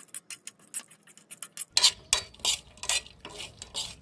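A spoon stirring spiced peanuts in a pan: quick light clicks and taps at first, then louder scraping strokes against the pan from about two seconds in.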